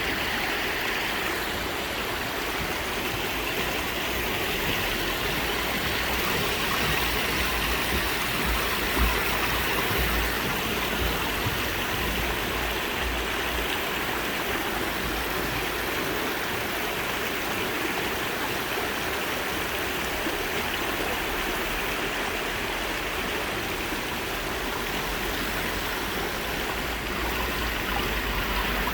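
Mountain stream flowing steadily, its water running and babbling without a break.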